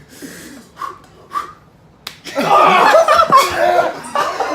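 A few faint knocks, then a sharp smack about two seconds in, a blow landing on a person, followed by loud laughing and yelling.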